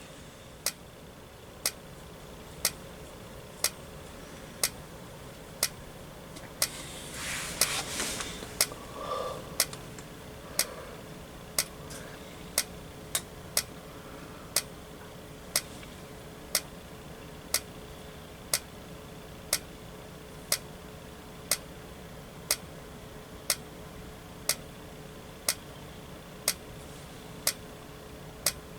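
Simplex TrueAlert strobe flashing with its horn silenced, each flash giving a sharp click about once a second, over a faint steady tone.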